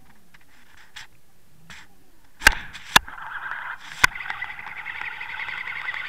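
An underwater camera rig knocks sharply three times as it lifts off the rocky bottom, then a steady rushing whir of water against the housing builds and grows louder as the rig is hauled up through the water.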